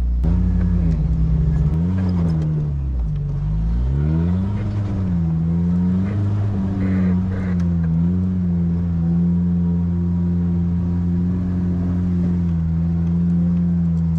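1993 Jeep Wrangler YJ's engine pulling it over a rough dirt trail, its revs rising and falling over the first six seconds or so, then holding a steady note.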